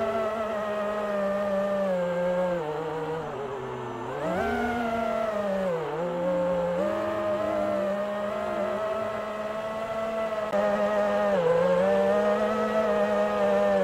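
A small drone's electric motors and propellers whining steadily, the pitch dropping and recovering several times as the throttle changes, most deeply about four and six seconds in. The sound grows a little louder near the end.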